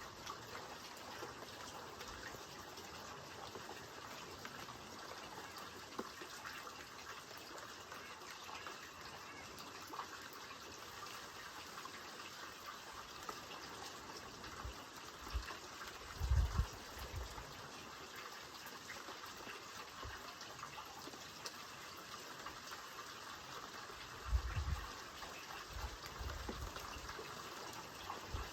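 Steady rain falling, an even hiss of drops. There are a few short low thumps about halfway through and again near the end.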